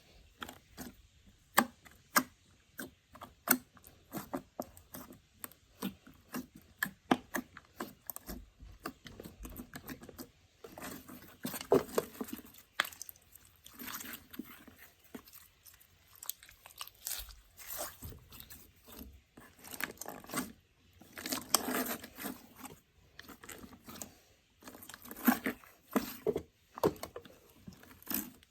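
Slime being squeezed and pressed by hand, making many irregular sharp clicks and crackles, with a couple of longer, denser stretches of crackling, one midway and one about three-quarters through.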